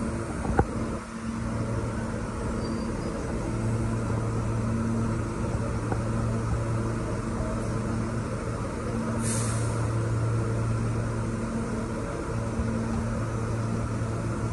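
A New York City subway train standing at the platform, its onboard equipment humming steadily, the hum swelling and easing. A sharp click comes near the start and a short hiss of released air about nine seconds in.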